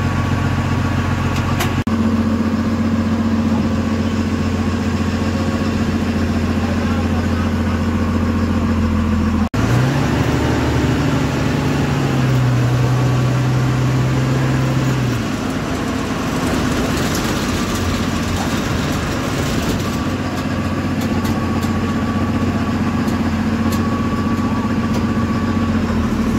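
MSRTC bus's diesel engine running, heard from inside the bus as it pulls out of the stand. After a sudden cut partway through, the engine note rises and then steps up as the bus gathers speed, then settles back to a steady run.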